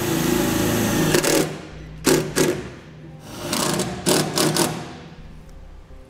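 Cordless impact driver sinking self-tapping screws through a trailer plug's mounting bracket into the truck bed's sheet metal. The motor whirs and the impact mechanism rattles in three runs: a longer one at the start, then two short bursts about two and four seconds in.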